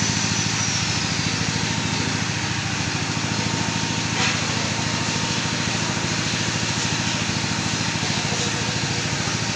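An engine idling steadily with an even low pulse, with one sharp knock about four seconds in.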